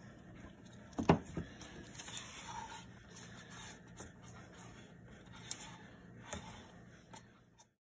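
Faint scraping and light knocks of a wooden stirring stick against a plastic mixing cup as glitter epoxy is poured out, with one sharp knock about a second in. The sound cuts to silence just before the end.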